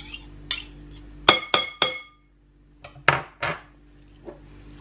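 A metal table knife scraping lemon curd off a metal spoon, the cutlery clinking together: three ringing clinks about a second in, then a few sharper clicks and a last light tap near the end.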